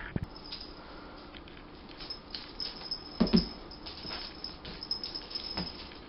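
Cat pouncing on a rug after a feather wand toy: soft thumps of its paws landing, with light patter and the rustle of the feathers. The heaviest thump comes about three seconds in, a smaller one near the end.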